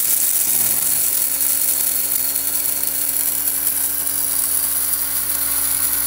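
Hamilton Beach Custom Grind electric blade coffee grinder running at a steady pitch, grinding a load of espresso beans, with a steady motor hum under a bright hiss of beans being chopped.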